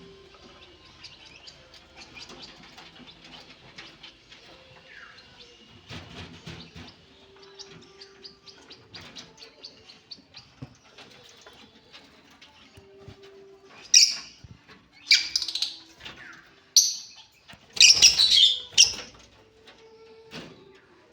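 Pet birds chirping and twittering, with a run of about five loud, harsh squawks in the second half.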